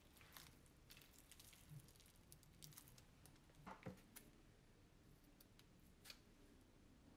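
Faint scattered sticky clicks and crackles of clear glitter slime and a plastic piping bag being handled, the loudest cluster a little past halfway.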